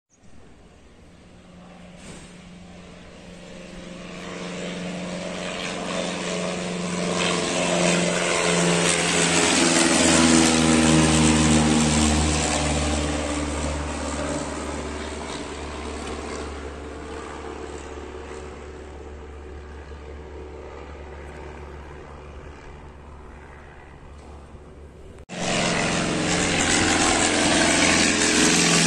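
Single-engine piston propeller training plane flying overhead, its engine drone growing louder over several seconds, then fading away. About 25 seconds in, an abrupt change to another light plane's engine, loud and close.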